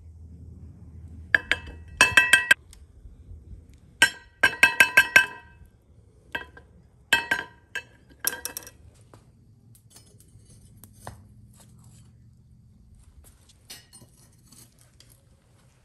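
Steel skimming spoon clinking against metal in clusters of quick ringing taps as dross is skimmed off molten aluminum and knocked off into a small cast-iron skillet. The taps thin out to faint scattered ticks after about nine seconds.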